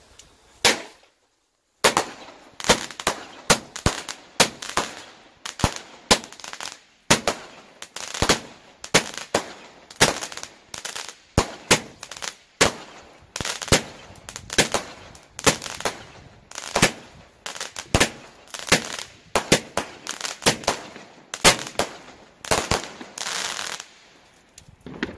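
Black Cat Triple Threat 25-shot Roman candle cake firing its red and green star shots in quick succession, a sharp report about every second for some twenty seconds. A short spell of crackle comes near the end.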